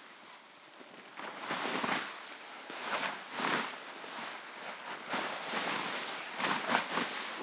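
Nylon tent rainfly rustling and flapping in a series of swells as it is lifted and pulled over the tent's pole frame.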